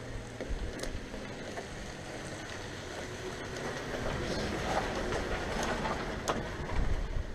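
Wind buffeting the microphone as a steady low noise, with a few light clicks of metal parts being handled.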